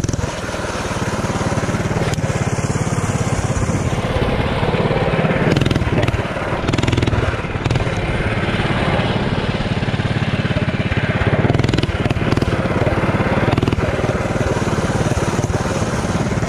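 Performance mini bike's small engine running as it is ridden, revving up and easing off again and again.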